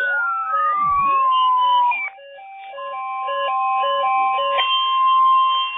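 Siren-like gliding tones rising and falling over a music track with a repeating stepped note pattern. After a brief dip about two seconds in, a steady tone near 1 kHz comes in and holds.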